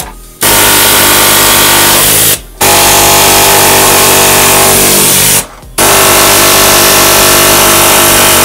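Pneumatic air hammer with a long flat chisel bit cutting through the rusted rear sheet metal of a 1972 Mustang Mach 1. It is very loud and runs in three long bursts with short breaks between.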